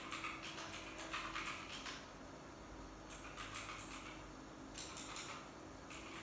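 Typing on a computer keyboard: short runs of rapid key clicks, about two seconds of steady typing, then shorter bursts with pauses between them.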